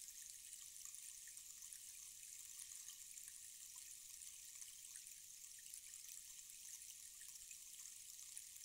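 Tall rainstick's fill trickling down inside the tube: a faint, steady patter of many tiny ticks.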